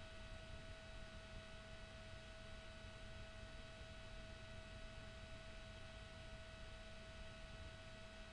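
Faint steady hiss and low hum with a thin, unchanging whine: the electrical noise floor of a computer's audio input, with nothing happening.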